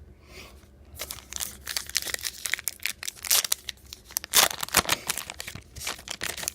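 A trading-card pack's wrapper being torn open and crinkled by hand, an irregular run of crackling and tearing that is loudest a little past the middle.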